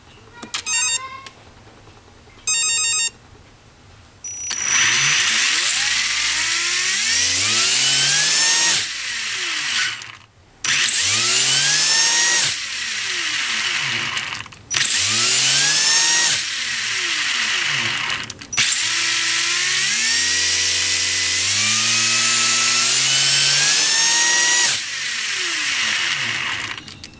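Two short electronic beep sequences, then a Tekin 17.5 brushless RC car motor spinning the drivetrain in repeated bursts of throttle, its electronic whine climbing in pitch as it speeds up, about eight runs with brief stops between them.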